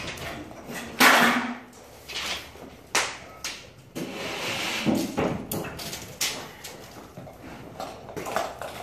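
Irregular sharp knocks and bangs of drywall work, tools and boards striking; the loudest comes about a second in, another about three seconds in, then several lighter taps.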